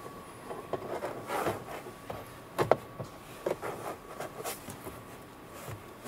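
A stainless steel speaker cover in its plastic protective film being handled and fitted against plastic door trim: scattered light taps, clicks and rubbing, with a sharper double knock about two and a half seconds in.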